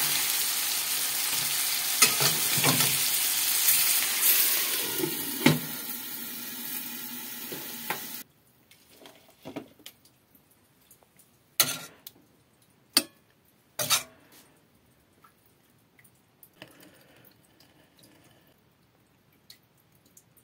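Ground-meat patties sizzling in hot oil in a stainless steel frying pan, with a metal spatula scraping and clicking against the pan as they are turned. The sizzle cuts off abruptly about eight seconds in, leaving quiet with a few sharp clicks, one of them loud.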